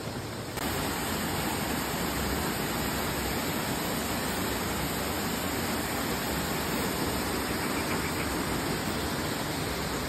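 Steady rush of a waterfall and its stream pouring over rock, a little louder from about half a second in.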